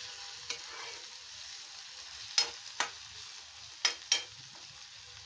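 Potatoes, garlic and tomato sizzling in a metal kadhai while a metal spatula stirs them, with about five sharp clicks where the spatula knocks and scrapes against the pan.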